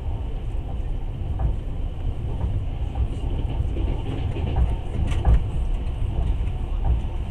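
Passenger train running on the rails, heard from inside the carriage: a steady low rumble of the wheels with irregular clicks and knocks, one louder knock about five seconds in.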